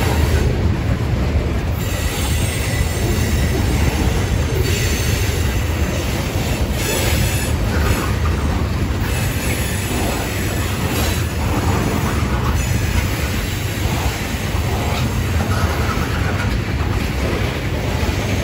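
Tank cars of a freight ethanol train rolling past on the rails: a steady low rumble of steel wheels on track, with brief sharper wheel noises now and then.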